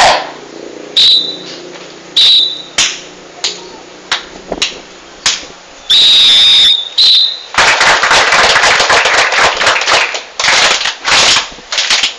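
Shrill whistle blasts: short toots about one and two seconds in, a longer blast about six seconds in and another just after. Around them are many loud, sharp hits and a dense stretch of crowd noise in the second half.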